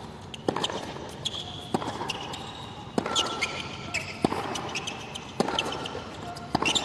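Tennis ball struck by rackets in a baseline rally on a hard court: sharp pops about every 1.2 seconds, six in all.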